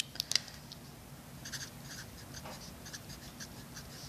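Green felt-tip marker writing letters on paper in short scratchy strokes, starting about a second and a half in. A few sharp clicks come near the start.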